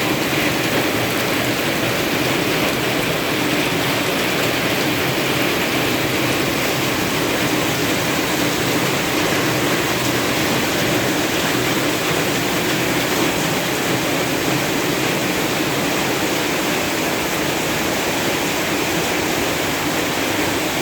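Heavy rain pouring down with running water, a steady even hiss that doesn't let up.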